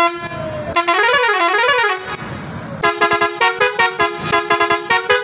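Multi-tone truck horn set driven by a digital melody maker, being tested: a steady tone cuts off at the start, a warbling tone rises and falls twice, then from about three seconds in a fast run of short notes, about five a second, jumps between pitches like a tune.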